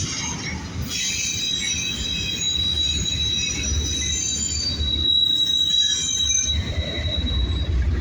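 Double-stack container freight train rolling past, a steady low rumble of the cars with wheels squealing against the rails in several high, held tones from about a second in; the rumble grows louder near the end.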